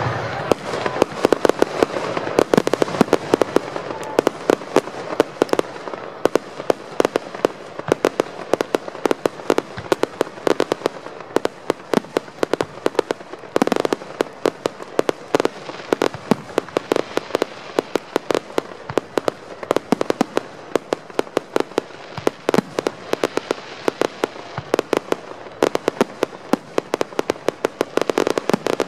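Aerial fireworks shells launching and bursting in rapid succession: a dense string of sharp bangs, several a second, over a steady rumbling haze.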